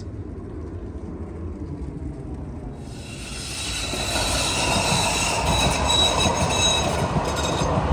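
A passing train or tram: a low rumble that grows louder about three seconds in, with high-pitched metallic wheel squeal.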